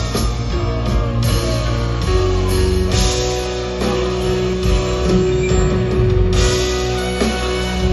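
Live band playing loud amplified music, guitar over a drum kit, with one long held note through the middle.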